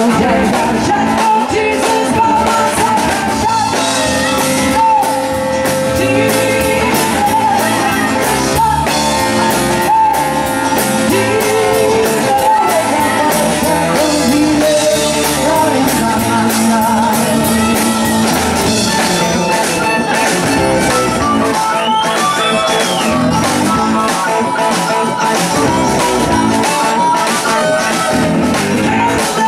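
Live rock band playing a song: a woman sings the lead over electric guitars, bass and a steady drum beat.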